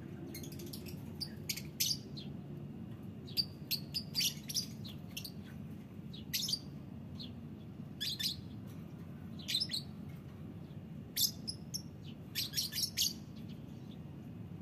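Caged lovebirds giving short, shrill chirps in scattered bursts every second or two, over a low steady background rumble.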